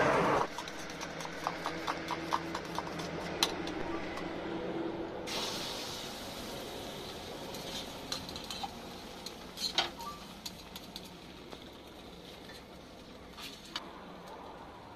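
Light clinks and taps of dishes and cutlery. About five seconds in, oil sizzles on a hot tawa as it is poured over a flatbread, with the hiss slowly fading and a few sharp knocks of utensils on the griddle.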